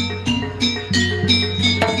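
Javanese gamelan music for jaranan: bronze metallophones and drums struck in a brisk, even run of ringing notes, about three or four strokes a second, over a steady low hum.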